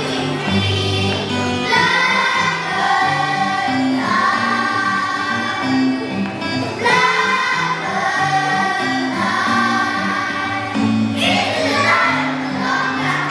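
A song playing: held sung notes over instrumental backing with a steady bass line.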